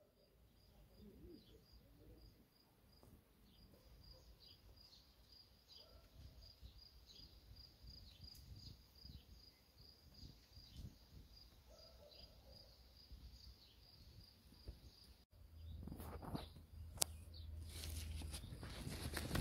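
Quiet outdoor ambience with a faint high chirp repeating about twice a second. After a cut about 15 seconds in, a louder low rumble takes over, with a sharp click a little later.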